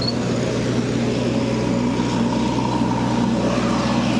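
Busy market ambience: a steady engine drone from a vehicle running, with an indistinct murmur of activity around it.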